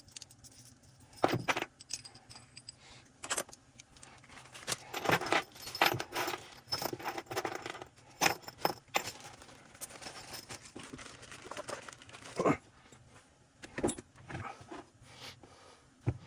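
Metal tools and chainsaw parts clinking and rattling as they are handled during a teardown: scattered clicks and knocks with a few short jingling clatters.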